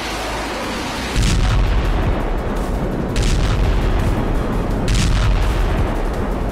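Explosions: a deep rumble sets in about a second in, with three sharp blasts roughly two seconds apart.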